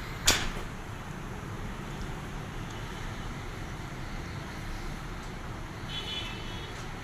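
A single sharp knock just after the start, then steady low background rumble, with a brief faint high-pitched sound about six seconds in.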